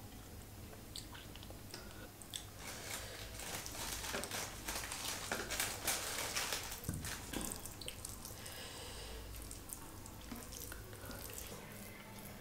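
Fingers mixing rice with paneer curry on a plate, close-miked: soft, quick squishing and rustling strokes, busiest in the middle.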